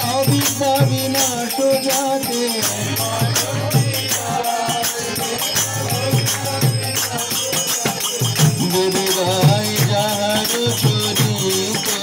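Bengali devotional kirtan: a man singing a chant through a microphone, with small brass hand cymbals (kartals) struck in a quick steady rhythm and a low drum beat underneath.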